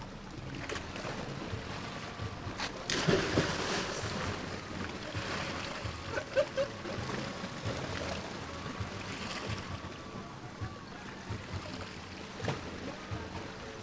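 Seawater splashing as a man plunges in off the rocks, loudest about three seconds in, then smaller splashes as he swims while waves wash against the rocks.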